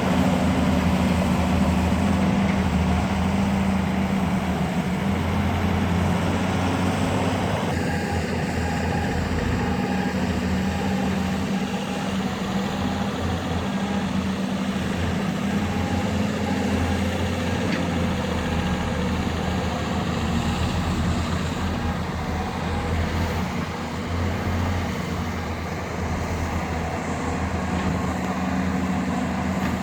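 Heavy diesel engines of excavators and dump trucks running steadily, with an abrupt change in the sound about eight seconds in.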